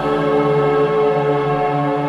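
Background music: a slow, ambient-style piece of long held chords.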